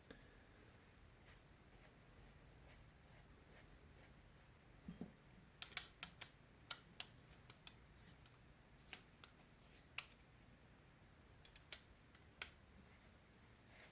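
Sparse, irregular small clicks and taps of metal tools and pedal parts being handled and fitted during reassembly of a bicycle pedal, bunched in a quick run about five to seven seconds in and a few more near the end.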